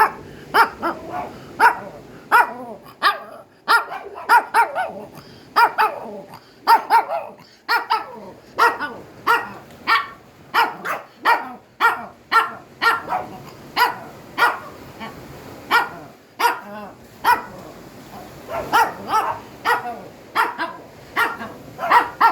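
A dog barking non-stop: a long run of short, sharp barks, about one to two a second, with no let-up.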